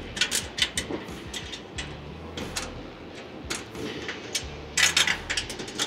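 Metallic clicks and clinks of hand tools on the fittings of a jet engine's bleed-air duct as one of its support rods is undone, in irregular flurries, loudest about five seconds in.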